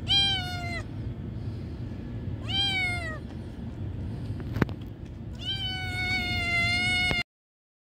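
A young stray cat meowing three times, the third call the longest, with a single sharp click between the second and third meows.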